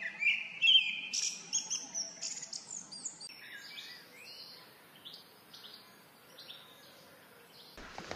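Wild songbirds singing in forest: a quick run of chirps and whistled notes, loudest in the first three seconds and thinning to scattered calls after that.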